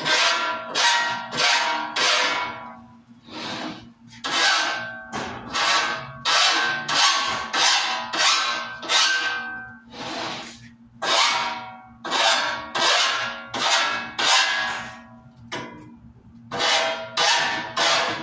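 Repeated hand-worked strokes rubbing and scraping across a large sign panel, about two a second, each with a squeaky ring as it drags.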